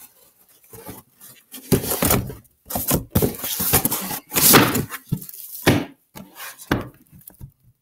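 Cardboard shipping box scraping and rustling in irregular bursts, with a few dull knocks, as a boxed book set is pulled out of it.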